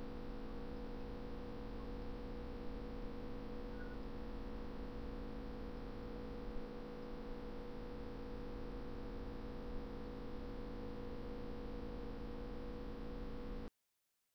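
Steady electrical hum and hiss of room tone, one steady mid-pitched tone over a faint hiss, cutting off abruptly to silence near the end.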